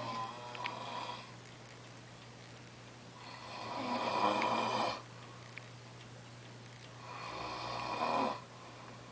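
A person snoring in sleep: a short snore at the start, then two long snores about four seconds apart, each swelling and then cutting off abruptly.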